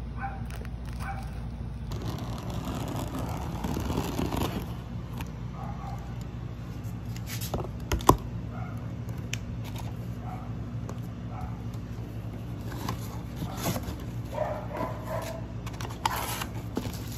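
Scissors cutting and scraping through packing tape and plastic wrap, then a cardboard box being pulled open and its contents handled, with one sharp click about eight seconds in, over a steady low hum.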